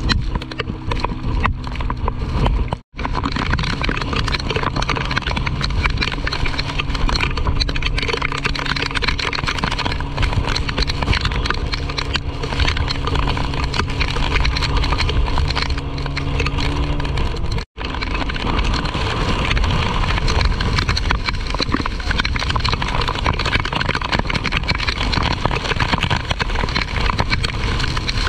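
A small wooden boat's engine running steadily as the boat drives through rough, stormy sea, under a heavy rush of wind and water noise. The sound cuts out for an instant twice, about three seconds in and again after about seventeen seconds.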